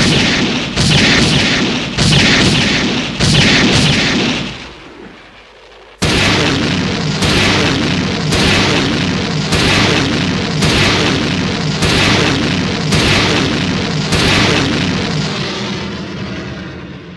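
Kiryu (MechaGodzilla 3) weapon-fire sound effect: a quick volley of heavy cannon-like blasts that dies away after about four seconds. After a short lull, a longer run of blasts follows at about one a second and gradually trails off.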